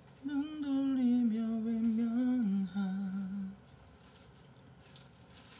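A man humming one long note of about three seconds that slides slowly downward and then drops a step lower before stopping, in a voice he says has gone a little hoarse from coughing.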